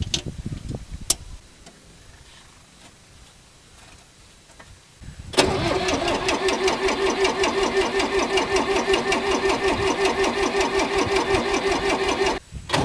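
1974 Long UTB 350 diesel tractor engine on a cold start. A couple of clicks come as the key is turned, then a few seconds of near quiet. About five seconds in the engine fires at once and runs loud and rhythmic, dropping out for a moment near the end.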